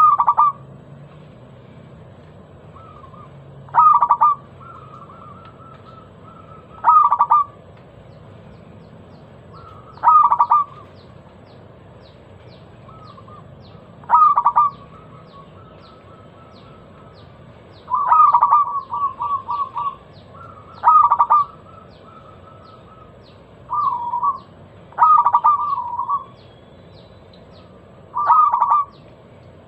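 Zebra dove (perkutut) cooing its song: short loud phrases repeated every three or four seconds, some trailing off in a quick run of stuttering notes.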